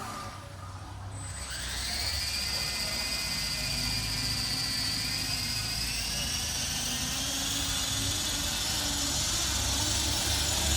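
3D printed RC helicopter's electric motor and rotor spooling up: a whine that sets in about a second and a half in and rises in pitch, then climbs higher again over the second half.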